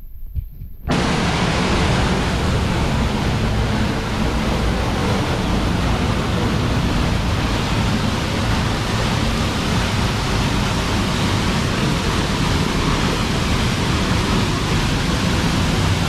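Peričnik waterfall's water crashing into its plunge pool: a loud, steady rush of noise that starts abruptly about a second in.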